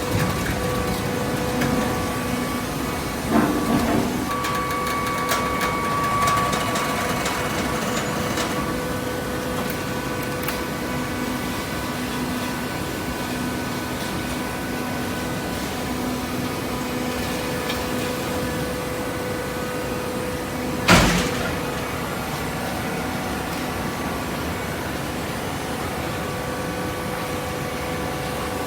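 Baling press running with a steady machine hum, a couple of clunks a few seconds in and one sharp, loud bang about two-thirds of the way through.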